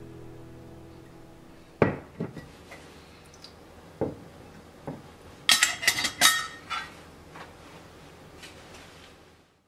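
Metal measuring spoon knocking and clinking against a stainless steel tray and other metal utensils: a few separate sharp knocks, then a quick run of bright, ringing clinks about five to seven seconds in.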